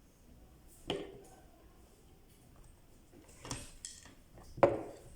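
A few light knocks and clicks of small hard objects being handled, four in all, the loudest near the end.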